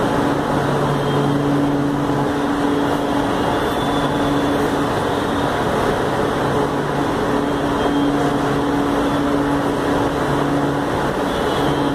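Metro train standing at the platform with its doors open, its on-board equipment giving a steady hum and rush of noise, with a low droning tone that fades in and out every couple of seconds.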